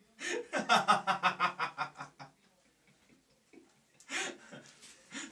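A man laughing hard in a quick run of ha-ha pulses for about two seconds, with one more short burst near the end.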